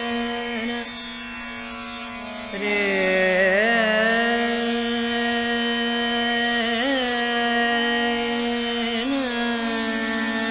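Background music in an Indian classical style: a steady drone under a melody that slides and bends in pitch, growing louder about two and a half seconds in.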